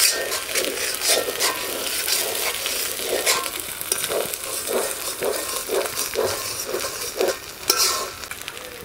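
Long metal spatula scraping around an aluminium karahi in strokes about twice a second, while onion, garlic, ginger and cumin pastes sizzle in mustard oil.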